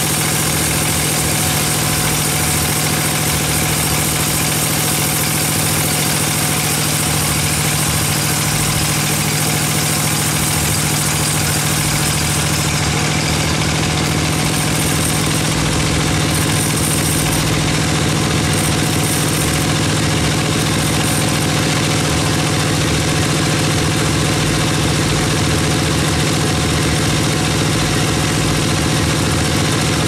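Band sawmill running steadily, its blade ripping lengthwise through a large timber log: a constant machine hum with several steady tones and no breaks.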